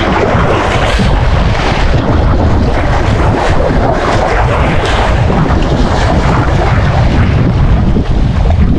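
Strong wind buffeting the microphone, a constant low rumble, over waves washing against the rocks of a rock wall.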